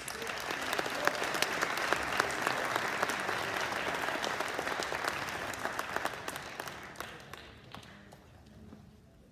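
Audience applauding: the clapping starts suddenly, holds strong for several seconds, then dies away near the end.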